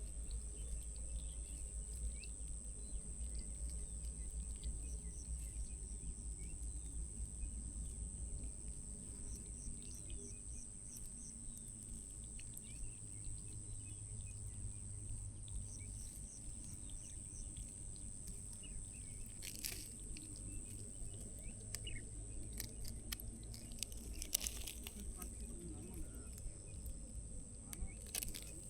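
Outdoor rural ambience: a steady high-pitched insect drone, with a couple of short runs of quick chirps and a few sharp clicks.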